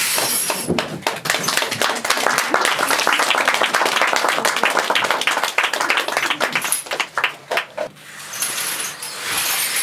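Audience applauding, a dense patter of claps that builds about a second in and dies away near the end.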